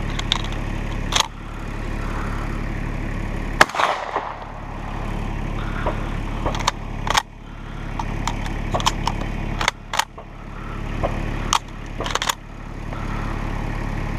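Remington Versamax 12-gauge semi-automatic shotgun firing slugs: several sharp shots, unevenly spaced a second or more apart. A steady low engine hum from a UTV runs underneath.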